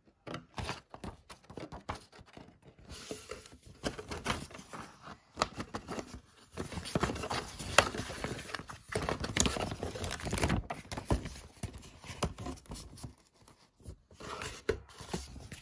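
Paper instruction booklet of a plastic model kit being handled and its pages turned: irregular rustling of paper with many small clicks and knocks of fingers on the pages.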